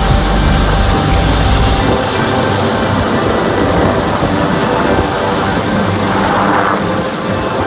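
Helicopter running: a fast, low beat of the main rotor over engine noise, with a steady high whine. The rotor beat is heaviest for the first two seconds, then eases.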